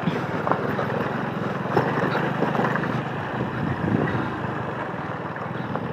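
Motorcycle engine running steadily under way, mixed with wind and road noise on the microphone.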